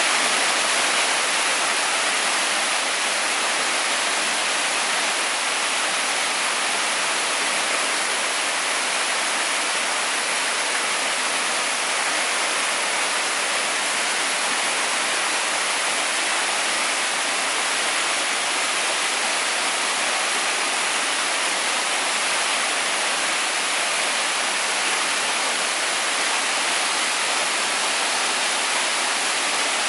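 Waterfall running steadily: a constant, even hiss of falling water that does not change.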